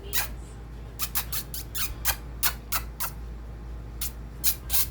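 Budgies chirping: a quick, irregular run of short, sharp, squeaky chirps, over a low steady hum.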